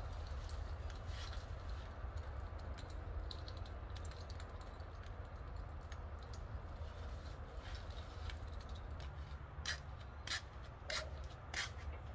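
Faint clicks and rattles of a tangled strand of patio string-light bulbs and wire being handled and pulled apart, over a steady low rumble. A few sharper clicks come near the end.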